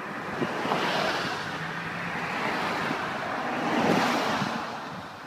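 Passing traffic: tyre and road noise of vehicles going by, swelling and fading twice, about a second in and again about four seconds in.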